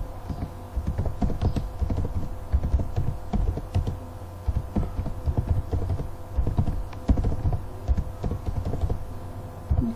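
Keystrokes on a computer keyboard as a sentence is typed, in quick irregular runs broken by short pauses.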